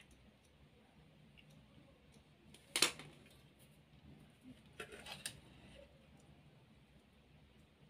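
Faint handling of wires and small electronic parts inside an open battery-charger case. There is one sharp click about three seconds in, then a short run of softer clicks around five seconds.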